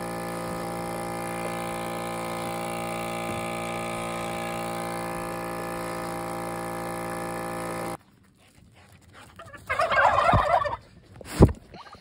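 Steady hum of a goat milking machine's pump, cutting off abruptly about eight seconds in. Then a turkey gobbles once, loudly, about ten seconds in, followed by a single sharp click.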